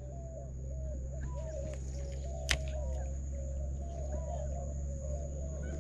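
Mangrove estuary ambience: birds calling in short, quickly repeated chirping notes over a steady high whine and a low steady hum, with one sharp click about two and a half seconds in.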